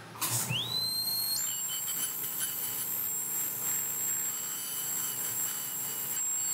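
High-speed dental handpiece (drill) started with a foot pedal. It spins up with a rising whine over its first second, then runs at a steady high-pitched whine.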